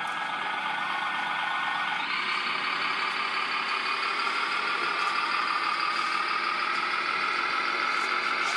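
Radio-controlled Bruder Liebherr wheel loader running, a steady high mechanical whine from its motors and drive. The whine gets louder about two seconds in and then rises slowly in pitch.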